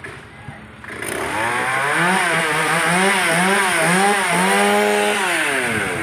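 Chainsaw cutting a banyan tree branch: the engine revs up about a second in, its pitch dipping and recovering about twice a second under the load of the cut, then holds steady and winds down near the end as the throttle is released.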